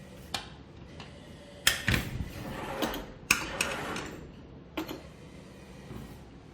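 Claw machine in play: a string of separate mechanical clicks and knocks from the crane and claw working the prize boxes. The loudest knocks come about a second and a half in and again past three seconds.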